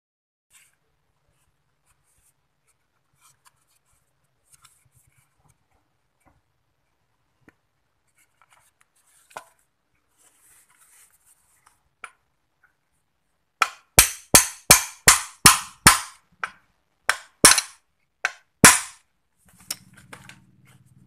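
About ten sharp knocks, six in quick succession and then a few slower ones, as the bushing is tapped down into the plastic base of a blender jar to seat it tight.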